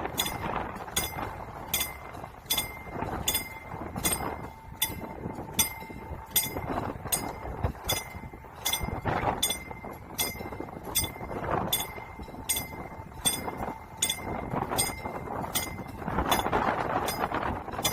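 Mechanical level-crossing warning bell striking steadily, about twice a second, each strike ringing on at one pitch. Underneath, a rushing noise swells and fades several times.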